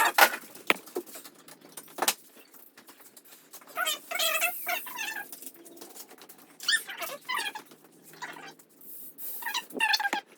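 A cat meowing repeatedly: three or four separate meows, each under a second and rising and falling in pitch, with a few sharp clicks near the start.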